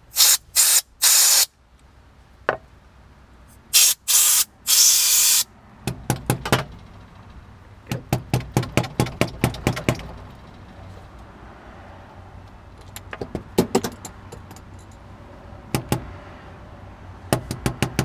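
Short blasts of canned compressed air hiss down a Winkhaus euro profile lock cylinder to drive the remaining pins out. There are two sets of three quick blasts, one in the first second and a half and one at about four to five seconds. After that come runs of rapid small metallic clicks, about six a second, from the cylinder and its parts being handled.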